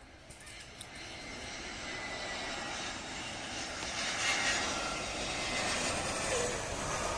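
Airbus A320 airliner on landing approach flying low past, the rush of its jet engines growing steadily louder, with a faint high whine.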